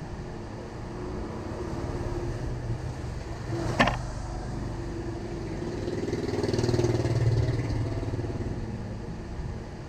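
A low engine rumble, like a vehicle passing, swells and fades around the middle. A single sharp clack comes a little before it.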